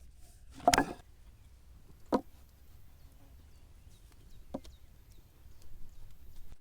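Three knocks from hand pasta-making on a work surface: a loud one about a second in, then two fainter ones more than a second apart. A low wind rumble runs underneath.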